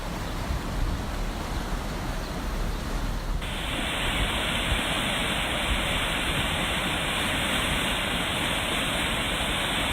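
Floodwater rushing down a desert wadi channel (sha'ib), a steady, dense rushing noise that starts abruptly about three seconds in. Before it, a low wind rumble on the microphone.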